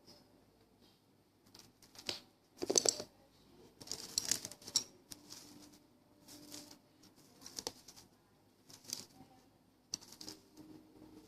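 Slime being squished and pressed by hand, giving short bursts of wet crackling and popping clicks, irregularly about once a second, the loudest about three seconds in.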